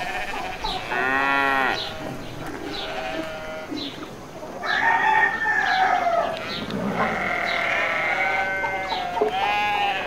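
Farmyard animal calls overlapping: several drawn-out pitched calls, one about a second in, a longer falling one around halfway and another near the end, over a scatter of short high chirps.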